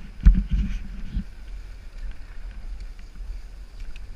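Skis running downhill over groomed snow, with a low steady rumble of wind on the action camera's microphone. Three heavy knocks come in about the first second.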